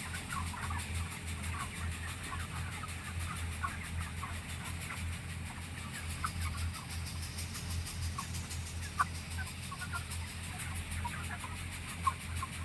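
A flock of chickens in a poultry house clucking and chirping, many short calls scattered and overlapping, over a steady low hum.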